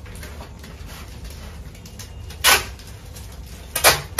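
Clear adhesive tape pulled off the roll in short rips: a longer rip about halfway through, then two quick ones near the end, over a low steady hum.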